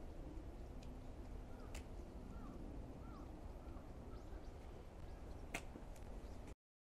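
Faint outdoor ambience: a steady low rumble with a few short chirping bird calls. The sound cuts off abruptly near the end, followed by a brief loud pop.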